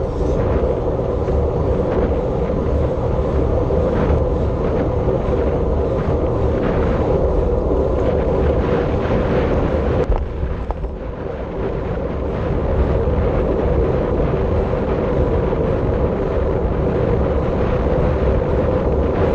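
Wind rushing over the microphone at racing speed on a bicycle, a steady rush with a constant hum underneath. About ten seconds in there is a single sharp click, and the rush eases briefly before building again.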